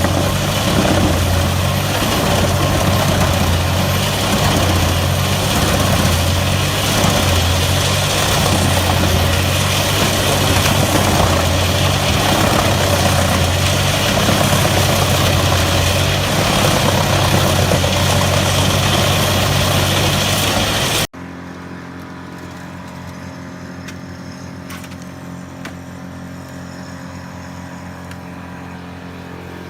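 Large mobile wood chipper running under load: a loud, dense noise of its engine and the chipping. About two-thirds of the way through it cuts off abruptly to a quieter, steady engine sound.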